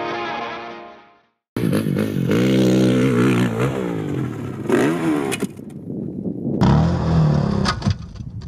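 Background music fades out in the first second. After a brief silence, a dirt bike's engine cuts in loud, its pitch falling and rising as the rider works the throttle over the jump, with a sudden louder burst and clatter about six and a half seconds in.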